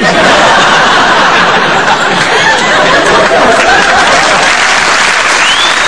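Large audience laughing and applauding together, a loud dense sound that starts suddenly and holds steady.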